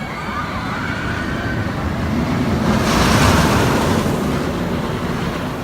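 A loud rushing noise that swells to a peak about three seconds in, then eases off.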